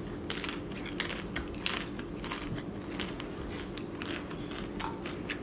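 A crisp fried corn tostada topped with crab and shrimp ceviche being bitten and chewed: a run of sharp, crackly crunches at irregular intervals.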